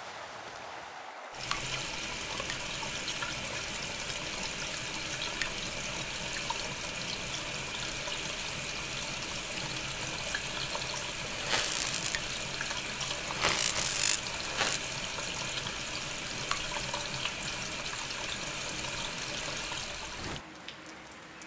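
Water running from a tap into a sink, turned on suddenly about a second in and running steadily until near the end, briefly louder three times about halfway through.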